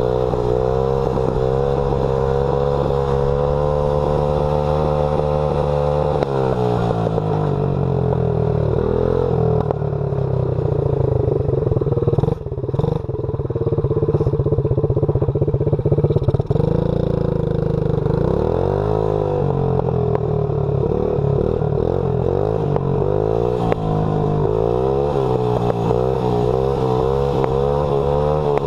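Small dirt bike's engine under way, heard from the rider's seat: it holds steady revs, drops off about six seconds in, then revs up and down again and again.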